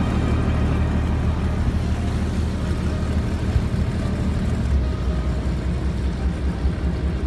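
Boat engine running steadily under way: a low rumble with a steady hiss over it.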